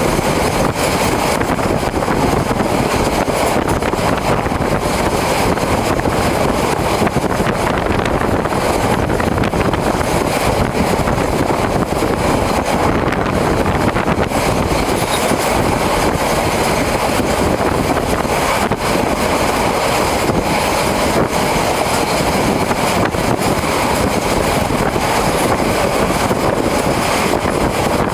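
A moving train running steadily, heard from aboard as a continuous loud rumble and rush, with wind on the microphone.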